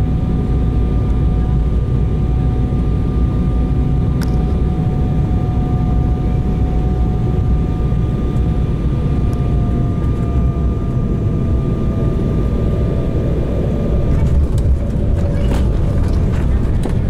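Jet airliner cabin noise on landing: a steady engine and airflow rumble with a thin engine whine that slowly drops in pitch through the second half. About 14 s in the rumble grows louder, with a few knocks, as the wheels touch down and the spoilers come up.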